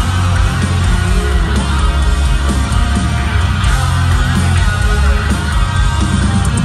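Live rock band playing loudly through a concert PA, with heavy bass and guitar, heard from within the crowd.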